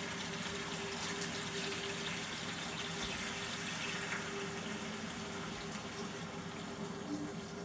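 Kitchen tap running steadily, water pouring out to fill a container, with a faint steady hum underneath.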